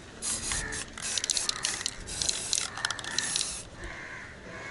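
Aerosol can of gold spray paint hissing in uneven bursts, with a few quick clicks in between, stopping about three and a half seconds in.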